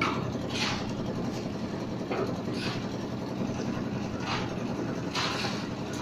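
Engine of a concrete mixer machine running steadily. Over it, shovels scrape repeatedly through gravel and wet concrete, about half a dozen short scrapes.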